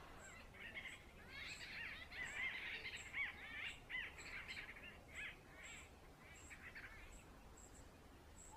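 Songbirds chirping: a busy run of short, quick arching calls that thins out near the end, faint, with a faint high ticking repeating a couple of times a second behind them.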